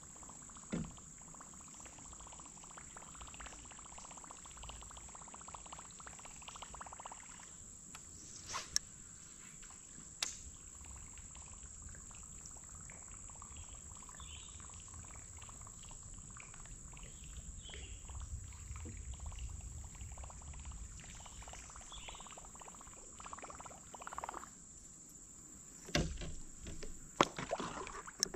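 Insects chirring steadily in one high, even tone, with a few sharp knocks on the kayak, twice around the tenth second and a cluster near the end.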